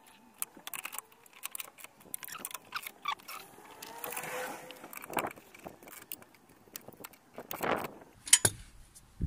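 Light metallic clicks and clinks of a hand tool working the nuts on a van's seat base and slider rails, with a sharper click near the end.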